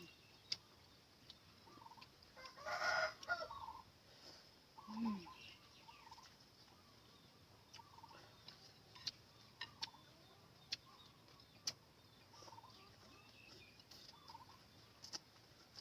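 Chickens calling: one louder call about three seconds in, with soft short calls repeating about every second. A few sharp clicks are heard in the second half.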